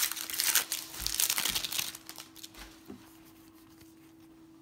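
Foil wrapper of a baseball card pack crinkling as it is handled and opened, for about two seconds, then dying down to a few faint clicks.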